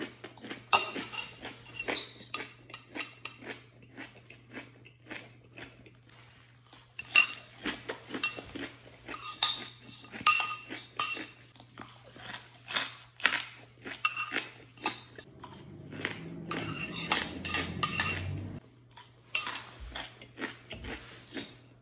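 Metal spoon clinking and scraping against a bowl while scooping up small cooked hard-shell crabs: many quick, irregular ringing clinks, with a quieter stretch about a third of the way in.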